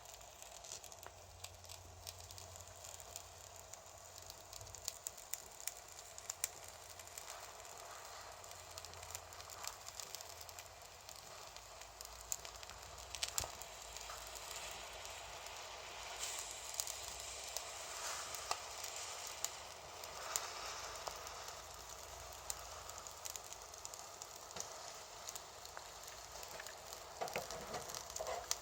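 Daiso ignition charcoal burning in a small homemade grill stove, crackling as a steady soft hiss with scattered sharp pops.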